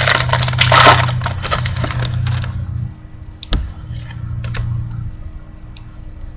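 Foil trading-card pack being torn open and its wrapper crinkled for the first two and a half seconds or so, followed by a few light clicks and rustles of the cards being handled.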